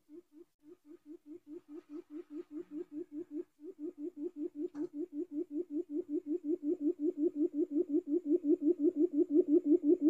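Quail lure call: a rapid, even series of short low hoots, about five a second, growing steadily louder throughout.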